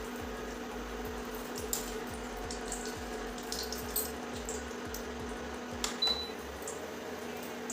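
Ginger frying in ghee in a kadhai: faint scattered crackling over a steady low hum, with two sharp clicks about six seconds in.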